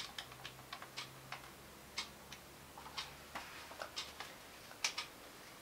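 Key presses on a handheld electronic calculator: quiet, irregular clicks, a few a second.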